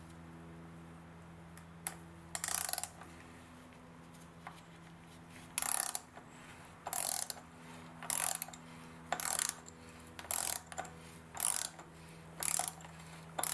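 Socket ratchet clicking in short bursts, about once a second, as it runs the oil filter housing cap back onto the engine.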